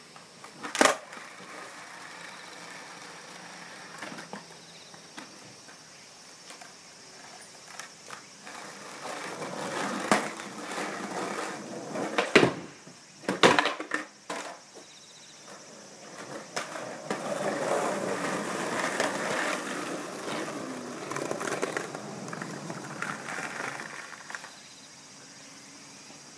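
Skateboard wheels rolling over rough concrete, with several sharp clacks of the board hitting the ground: one about a second in and two close together around the middle.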